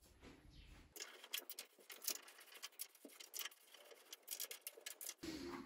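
Faint, irregular clicks and small taps of a hex key working the rear roller adjustment bolts of a treadmill while the running belt is straightened.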